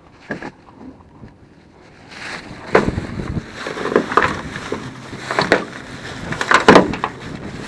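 Magnet-fishing finds (nails, bolts and other scrap metal) tipped out of a bag, clattering down in a string of knocks. Wind buffets the microphone.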